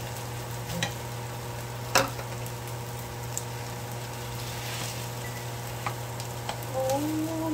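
Kimchi fried rice sizzling in a frying pan over lowered heat as it is stirred and pressed down, with a few sharp clicks, the loudest about two seconds in.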